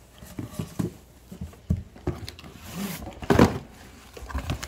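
A box being opened and its contents handled: a string of short knocks, scrapes and thumps, the loudest about three and a half seconds in.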